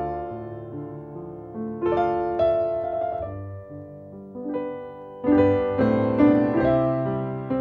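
Background piano music: slow struck chords and melody notes that ring and fade away, with a louder chord entering about five seconds in.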